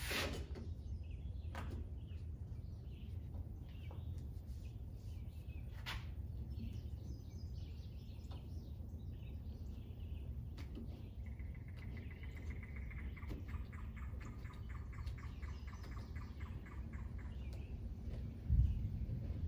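A bird calls in a long, rapid rattling trill over a steady low rumble, while a trunk weatherstrip is pressed into its channel with a few light clicks. A dull thump comes near the end.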